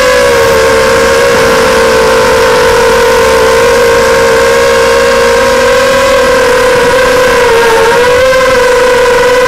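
FPV racing quadcopter's brushless motors and propellers whining at a steady high pitch, the tone sagging slightly just after the start and again near the end before climbing back.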